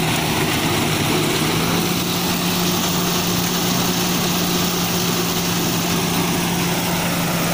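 Engine of a groundnut digging machine running steadily as the machine works along the crop row, with an even, unchanging hum.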